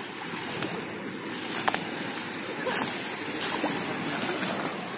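Small waves washing steadily against a muddy, debris-strewn shore and driftwood, with a few short sharp clicks scattered through.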